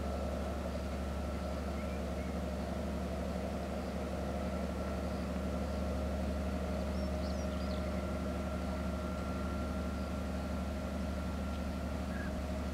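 Steady drone of a distant diesel locomotive engine, an MÁV M62 with its two-stroke V12, working under power while still out of sight.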